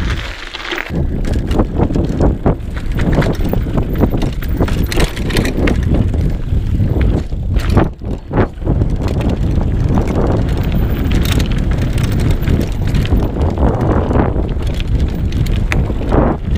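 Mountain bike ridden fast on a dirt forest trail: wind buffeting the camera microphone over the rumble of the tyres and the rattle of the bike over bumps, with a brief lull about eight seconds in.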